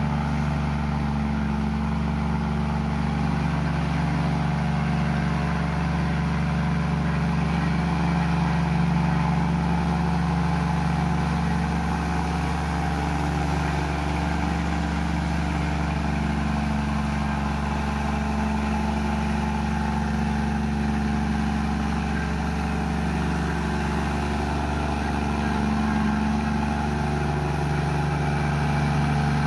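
Komatsu bulldozer's diesel engine running steadily under work, its pitch shifting slightly up and down.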